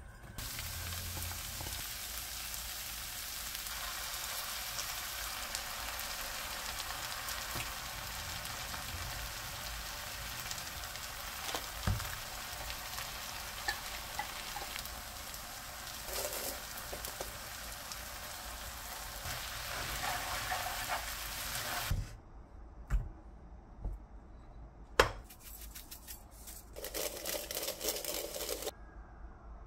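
Food sizzling as it fries in a pan, a steady hiss that cuts off abruptly about 22 seconds in. After it come a few sharp kitchen clicks and knocks, one of them the loudest sound of all.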